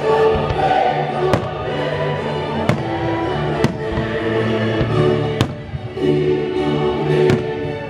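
Fireworks bursting with sharp bangs every second or two, over orchestral music with held notes.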